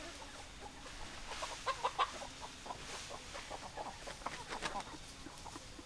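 Chickens clucking in short, repeated notes, with a busier run of loud clucks about a second and a half in and another around four seconds in.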